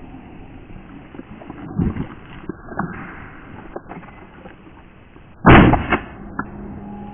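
A single loud shotgun blast about five and a half seconds in, fired at a hare, followed by a fainter crack half a second later. Before it, only a few soft knocks and scuffs.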